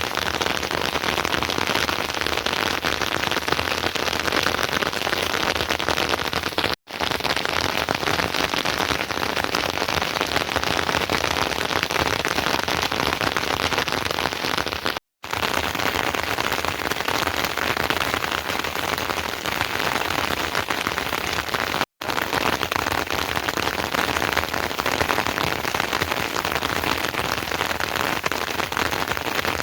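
Heavy rain falling steadily, a dense hiss of drops, broken three times by a sudden silent gap of a split second.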